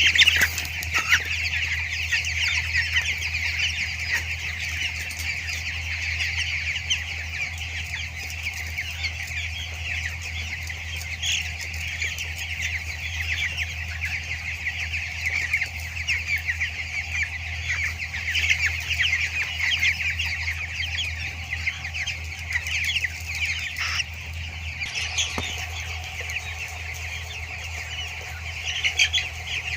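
A large flock of 14-day-old broiler chicks cheeping continuously, many calls overlapping, over a steady low hum.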